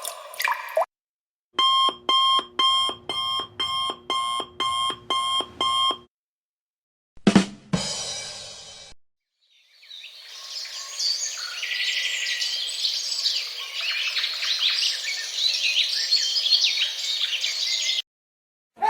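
A string of stock sound effects. First an alarm clock rings in about nine short bursts, roughly two a second. Then comes a ba-dum-tss drum sting: two drum hits and a cymbal crash. Last, several birds chirp and sing for about eight seconds.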